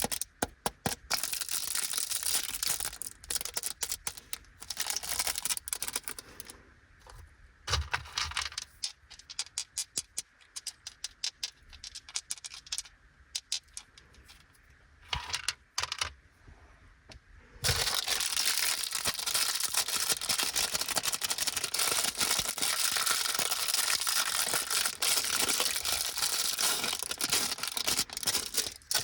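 Plastic candy wrappers being handled, with scattered crinkles and clicks between quiet gaps. About two-thirds of the way in, a plastic snack bag starts a dense, continuous crinkling that goes on to the end.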